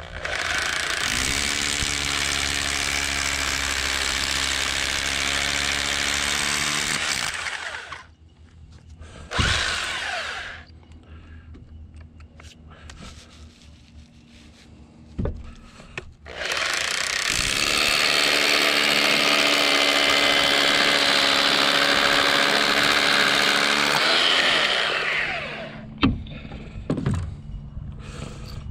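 Electric drill boring holes in concrete: two long runs of about seven seconds each, the first starting about a second in and the second about halfway through, each speeding up at the start and winding down at the end. Two brief whirs of the drill fall between and after them.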